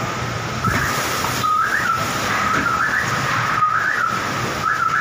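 Storm wind blowing hard, a steady rushing noise, with a high whistling tone running through it that swoops upward about once a second.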